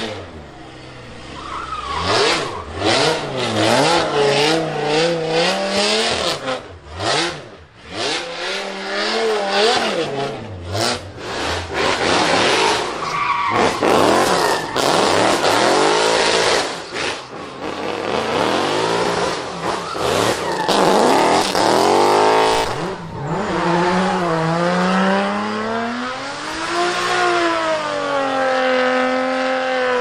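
A drift car's engine revving hard, its pitch rising and falling again and again as the car is worked through a slide, with repeated sharp cracks over the first dozen seconds and tyres squealing.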